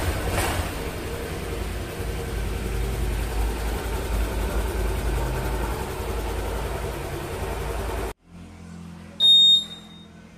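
Honda Vario 150 scooter's single-cylinder engine idling steadily, then switched off abruptly about eight seconds in, its main fuse back in place. About a second later comes a single short, high electronic beep.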